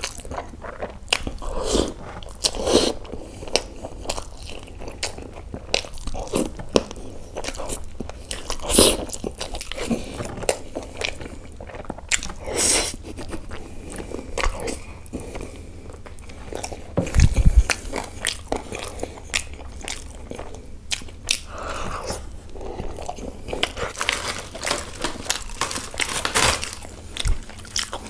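Close-miked eating: a man biting into and chewing a butter chicken leg piece, heard as irregular clicks and mouth smacks, with a dull thump about seventeen seconds in.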